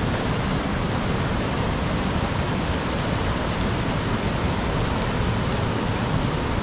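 Steady, loud rush of a fast whitewater river running over rocks.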